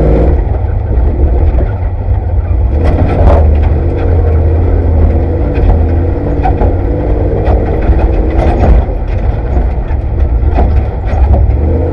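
Off-road race vehicle's engine running hard, heard from inside the cockpit: a heavy low drone whose pitch shifts up and down, with frequent knocks and rattles as the vehicle bounces over rough ground.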